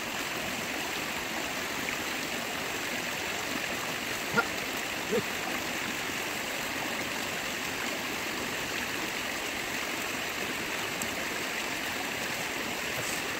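Steady rushing of a shallow stream's running water, with a couple of brief small sounds a little after four seconds in.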